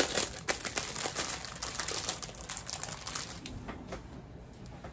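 Plastic packaging of a diamond painting kit crinkling and crackling as it is handled and opened, dense for the first few seconds, then thinning to a few scattered clicks.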